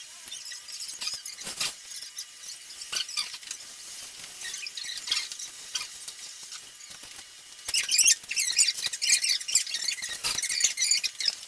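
Hands working on the plastic body and circuit board of a DJI Phantom 4 drone, making scattered small clicks, scrapes and squeaks. The sounds grow busier and louder near the end.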